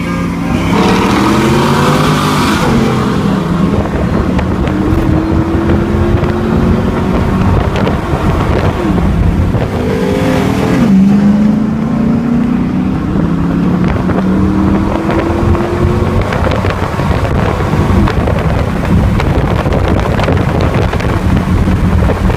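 V8 muscle-car engine under full-throttle acceleration, heard from inside the car. The pitch climbs and drops at each of several upshifts, then holds at speed.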